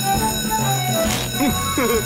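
Electric twin-dome fire station alarm bell ringing steadily, heard over background music.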